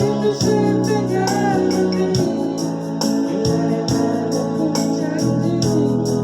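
Instrumental music: an organ-like keyboard plays a melody over held chords, with a steady beat of a little over two strokes a second.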